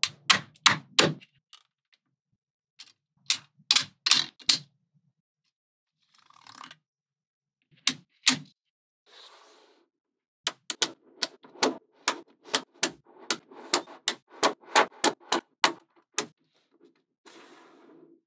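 Small magnetic balls snapping together with sharp clicks as they are fitted into place by hand: a few quick clusters of clicks in the first half, then a fast run of clicks, about three or four a second, from about halfway through, with a few soft rustles of balls sliding between.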